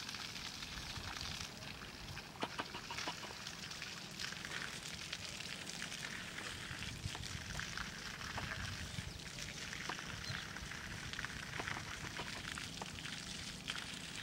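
Faint outdoor ambience: a steady low hiss with scattered small ticks.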